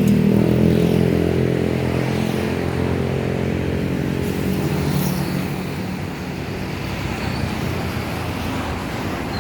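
Tour bus diesel engine running steadily as the bus pulls away, loudest at first and fading over about five seconds into general traffic noise.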